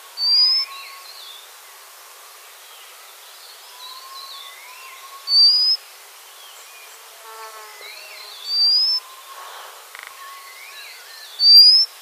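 White-capped redstart calling: four loud, thin whistles, each rising in pitch and under half a second long, a few seconds apart, over fainter calls of other birds.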